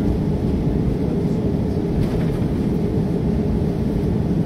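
Steady low rumble inside the passenger cabin of an Airbus A340-500 while it taxis: its four Rolls-Royce Trent 500 engines at low thrust and the cabin air, heard through the fuselage.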